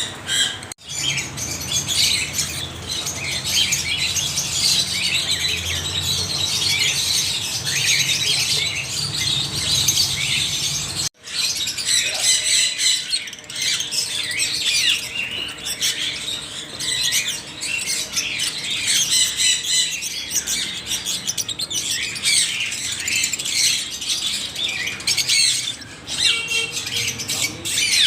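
Many parrots chattering, chirping and squawking at once: a dense, continuous flock din. It breaks off abruptly for an instant about a second in and again about eleven seconds in.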